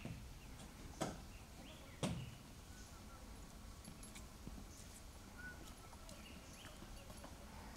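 Quiet outdoor background with two sharp knocks about a second apart near the start, and faint, scattered high chirps.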